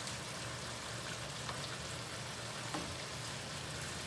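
Sweet-and-sour sauce with vegetable strips simmering in a wok on a gas stove: a steady, gentle sizzling hiss, with a couple of faint clicks.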